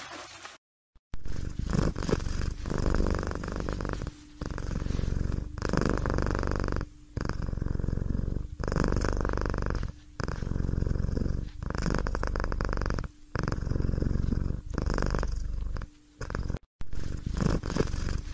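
A domestic cat purring, rising and falling in a steady cycle of breaths, each stretch about one to two seconds long with short dips between.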